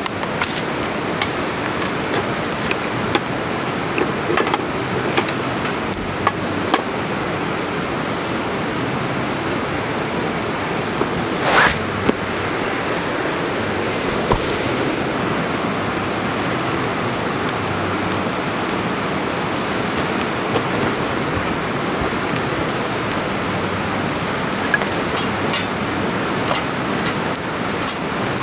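Wood campfire crackling and popping over a steady rushing hiss, with a brief louder hiss about twelve seconds in and a run of quick crackles near the end.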